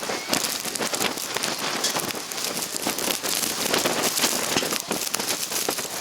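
Blizzard wind with blowing snow pattering on the microphone: a dense, steady crackling hiss.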